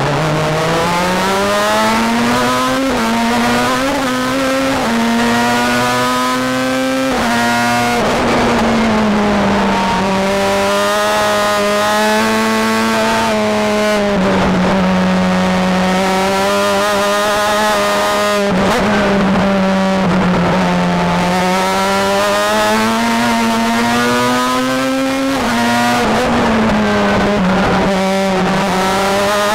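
Onboard sound of a Star Mazda formula car's Mazda rotary engine at racing speed. It climbs through quick upshifts in the first seven seconds, then falls and rises in pitch in long sweeps as it brakes, downshifts and accelerates through corners.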